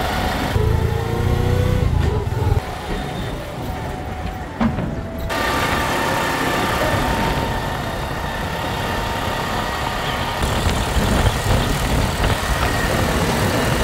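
Riding inside a CNG auto-rickshaw: its small engine running and road noise coming through the open cabin, heaviest in the first couple of seconds.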